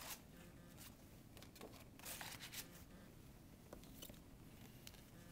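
Near silence, with a few faint rustles and light taps as a card is slid into a clear plastic pocket of a pocket chart, mostly at the start and again about two seconds in.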